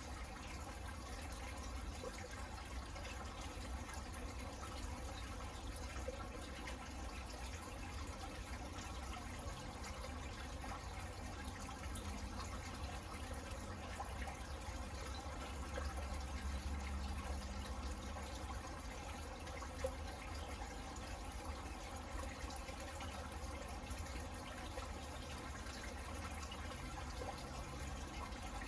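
Steady rain falling on garden plants and pots, with a low rumble underneath that swells briefly past the middle.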